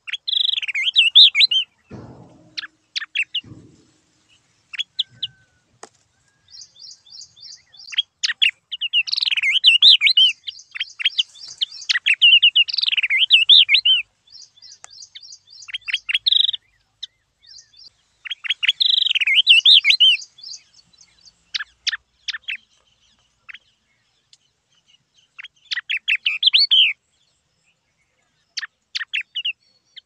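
Yellow-eyed babbler song: repeated bursts of quick, warbling whistled notes that slide up and down, alternating with runs of rapid high ticking chatter, separated by short pauses.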